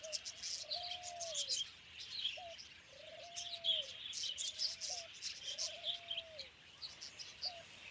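Bird calls: a low, arching note repeated about five times, each led by a short rising note, over many quick high chirps.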